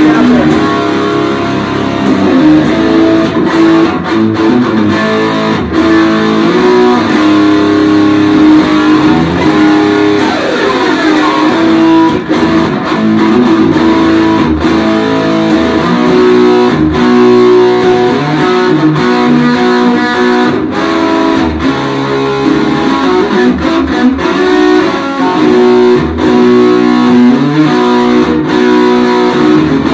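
African mahogany single-cutaway electric guitar with Seymour Duncan JB and Jazz pickups, played continuously: ringing chords and lead notes, some of them sliding in pitch about a third of the way through.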